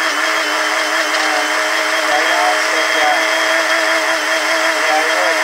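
Personal-size blender running steadily, its motor giving a continuous hum over the churning noise as it blends a liquid fruit-and-plant mixture.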